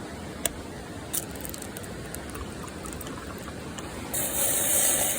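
Small crackles and pops over a steady low rush, typical of a wood fire; about four seconds in, a loud high hiss starts abruptly and runs for about a second and a half.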